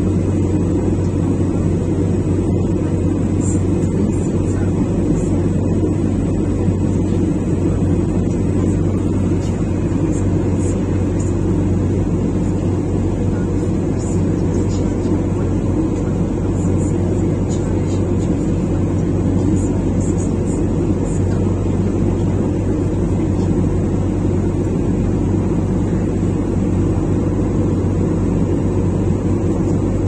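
Steady cabin noise of an airliner in flight: a constant low drone of engines and rushing air, unchanging throughout.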